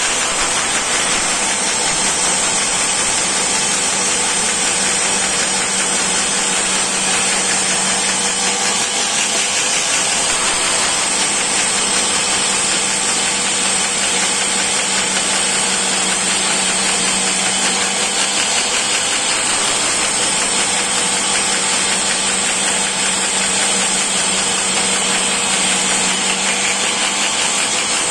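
Woodworking cutting machine running steadily with a constant hum, its cutter working through wooden blocks held in a clamp jig.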